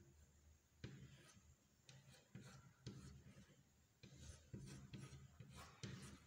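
Chalk drawing on a blackboard: a series of faint, short scratching strokes, each starting with a light tap of the chalk on the board.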